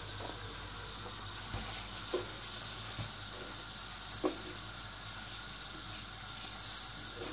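Spiced water at a boil in an open pressure cooker on a high gas flame, a steady hiss, as soaked basmati rice is poured in from a steel vessel, with a few light knocks about two and four seconds in.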